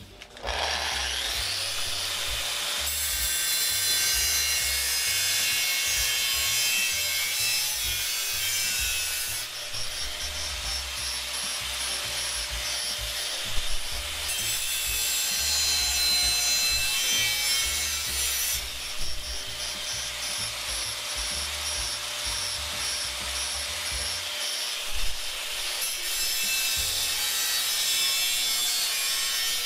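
Angle grinder with a thin cut-off wheel cutting a steel motorcycle rear fender: a steady, high-pitched grinding hiss that starts just after the beginning and shifts in tone as the wheel bites in and eases off, with two brief louder catches.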